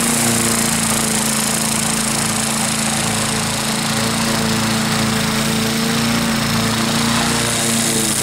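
Wolf-Garten ride-on mower's engine running steadily at an even pitch, its blade cutting through tall, wet grass.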